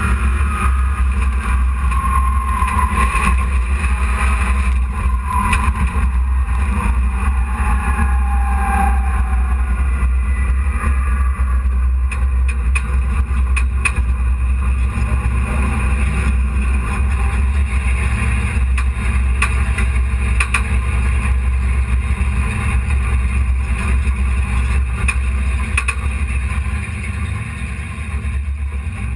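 Dirt-track hobby stock truck's engine running steadily, heard from inside the cab as a deep, constant drone. The sound fades down near the end.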